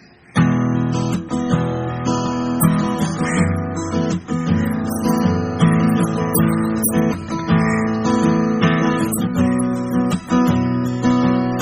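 Background music of strummed acoustic guitar, starting about half a second in.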